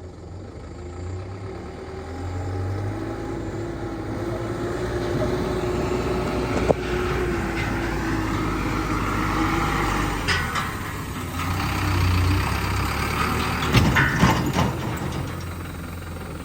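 Excavator's diesel engine running under load with a steady whine for much of the time. A sharp knock comes about seven seconds in, and bursts of clunks follow around ten and fourteen seconds in.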